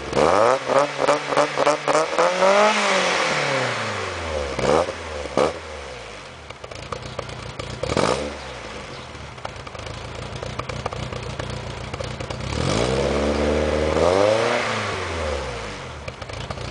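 Mk1 VW Golf Cabriolet's four-cylinder engine revved through its custom exhaust while standing still. It opens with a quick string of short throttle blips and one bigger rev. Single blips follow, then the engine settles to idle, and a longer rev climbs and falls back near the end.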